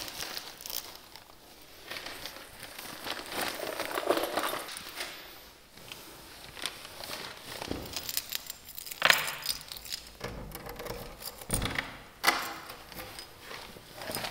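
Rummaging for keys: rustling, keys jangling and scattered small clicks, with a few sharper knocks, the loudest about nine seconds in.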